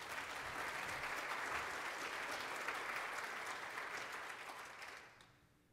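Audience applauding, many hands clapping together, fading away about five seconds in.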